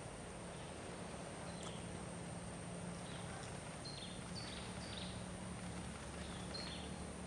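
Quiet outdoor ambience with a steady low hum, and a string of short, high, falling chirps from about a second and a half in, repeating every half second to a second.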